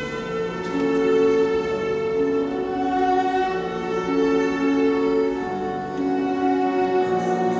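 Viola playing a classical melody with piano accompaniment, the viola holding long bowed notes of about a second each that change pitch smoothly one to the next.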